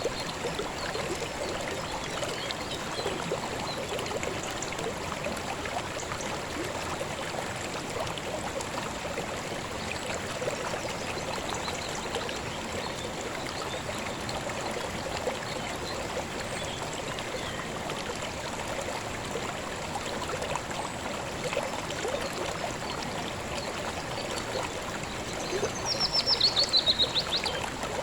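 Calm river flowing steadily, a continuous trickling rush of water. Near the end a bird gives a quick run of high notes that falls in pitch, briefly the loudest sound.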